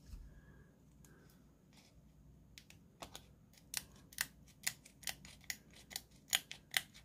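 Scissors snipping through a plastic decal transfer sheet: quiet at first, then a run of short sharp snips, about two a second, growing louder toward the end. The sheet is hard to cut, which the cutter puts down to dull scissors.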